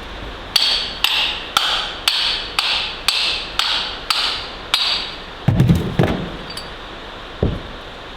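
Hammer blows knocking the old leather PTO shaft seal out of a Ferguson TEA20's housing: nine evenly paced strikes, about two a second, each with a short metallic ring. Then comes a louder flurry of knocks at about five and a half seconds as the seal comes free, and a single knock near the end.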